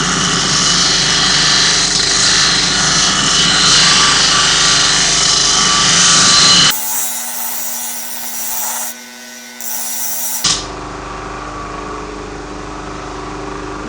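Coarse-grit disc of a large homemade disc sander grinding the edge of an old steel splitting axe: a steady, loud grinding hiss. About two-thirds of the way through it cuts off abruptly, and the sander is then heard running more quietly with a steady hum, no longer grinding.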